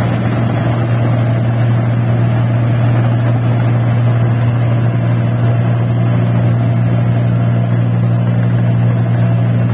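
Rice combine harvester's engine running steadily at constant speed, a loud, even drone with a low hum.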